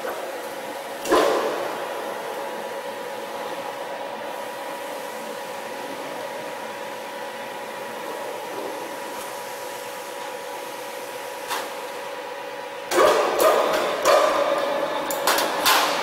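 Sheet-metal locking machine for solar water heater outer tanks: a steady electric hum with a single sharp metal knock about a second in, then, near the end, a loud run of irregular metallic clanking and rattling.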